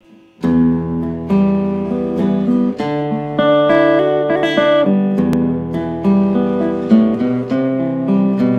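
Acoustic guitar playing a song's intro on its own, strummed chords and picked notes, starting about half a second in.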